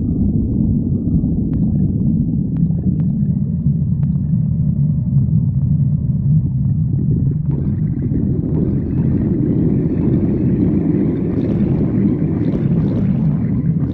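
A person's stomach growling: a continuous low rumble, with gurgling that spreads higher from about halfway through.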